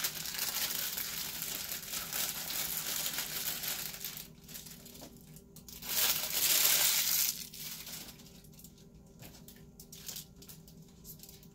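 Crinkling and rustling of clear plastic packaging as makeup brushes are pulled out of it, loudest in a burst about six seconds in, then thinning to quieter scattered crackles.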